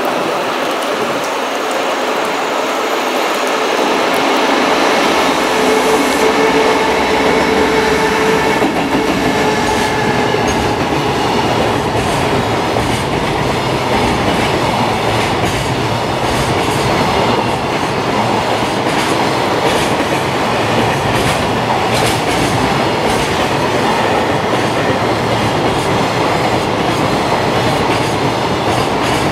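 Long electric freight train passing at speed, with a whine in the first several seconds. Then the container wagons rumble by with a steady clickety-clack of wheels over the rail joints.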